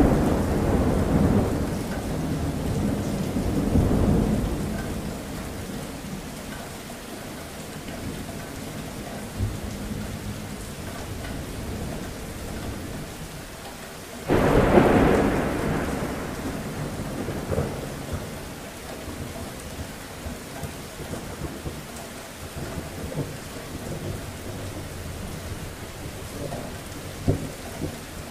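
Steady rain with a thunderstorm: thunder breaks right at the start and rumbles on for about five seconds, then a second sudden, louder clap comes about halfway through and rolls away over a few seconds, leaving the rain and some fainter rumbling.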